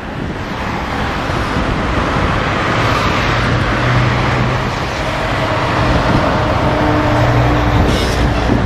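Steady motor-vehicle noise: an engine running under a constant traffic-like hiss, fading up at the start.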